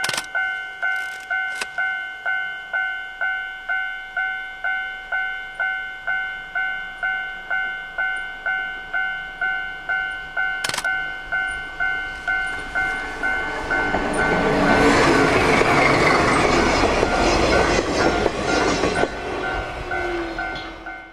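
Japanese level-crossing alarm dinging steadily in a two-tone pattern, about twice a second. From about fourteen seconds in it is overtaken by a DD13 diesel-hydraulic locomotive and its tank wagons passing close, engine and wheels loud, before the train sound fades near the end.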